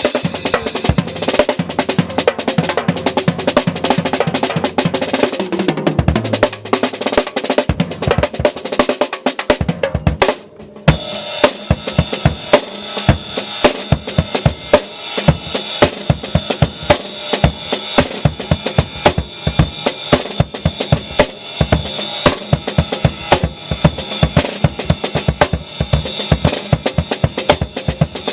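Drum kit played solo: dense fills that step down in pitch about six seconds in, then a short break near ten seconds. After the break, a driving beat of bass drum and snare runs under ringing cymbals.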